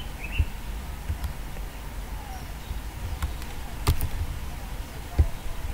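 A few separate clicks from working a computer's mouse and keys, about five in all, the loudest about four seconds in, over a low steady hum.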